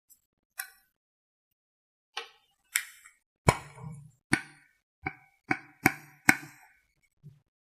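Sharp taps and clicks of makeup containers and tools being handled, about ten in all, irregular and coming closer together in the second half, some with a short low ring.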